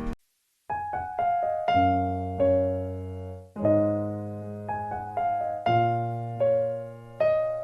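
Solo piano playing music: a brief silence, then struck notes and chords that ring and fade, a new chord about every second.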